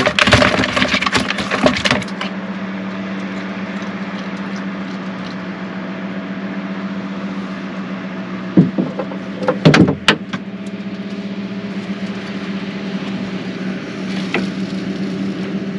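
A steady motor hum. It starts after about two seconds of loud crackling handling noise, and a few sharp knocks and clatters break in about two-thirds of the way through.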